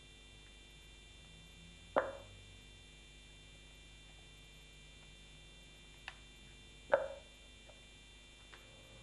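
Spark plug connectors being pulled off a BMW M42 engine's spark plugs: two sharp clicks about five seconds apart, each with a short ring-out, and a couple of faint ticks between them, over a steady low hum.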